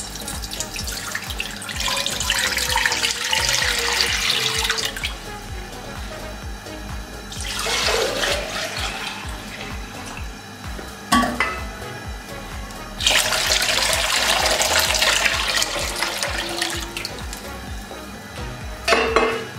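Water poured from a glass jug into a wok, in three long splashing pours with pauses between them and a short final pour near the end. A sharp knock about eleven seconds in.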